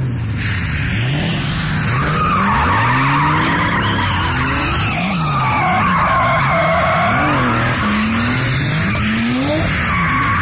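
Drift car engine revving up and down again and again while its rear tyres squeal and screech through long sideways slides.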